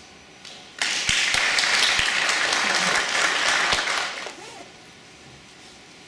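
Audience applauding, starting suddenly about a second in and dying away after about three seconds.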